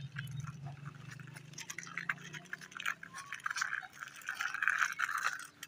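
Plastic wheels of a push-along toy tricycle rolling and grinding over gritty concrete: a crunchy scraping full of small clicks, loudest near the end.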